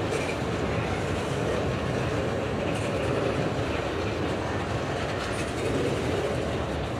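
Railroad cars rolling past on the track, a steady rumble of steel wheels on the rails.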